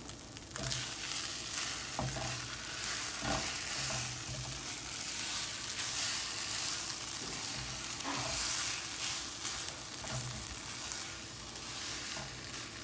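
Melted marshmallows bubbling and sizzling in a hot nonstick frying pan while a spatula stirs and scrapes ramen noodles through them. There are a few light knocks of the spatula against the pan.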